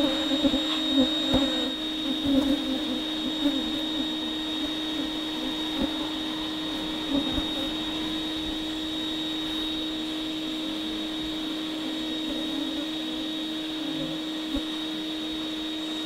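Bee vacuum running steadily, its motor giving a constant hum with a high whine, as the hose sucks honey bees off wild comb. A few faint irregular sounds sit over it in the first few seconds.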